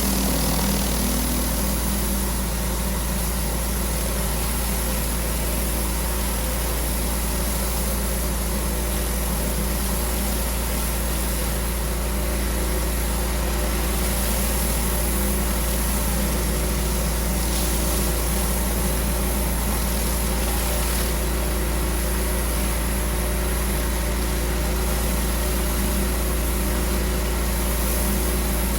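Pressure washer running steadily, an engine-like hum under the hiss of the high-pressure water jet on the paving.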